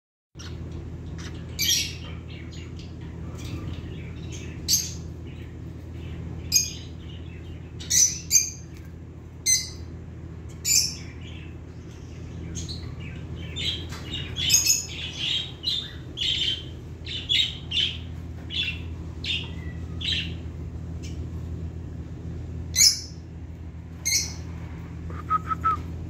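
Young lovebirds giving short, shrill chirps and squawks at irregular intervals, coming faster and closer together in the middle, over a steady low hum.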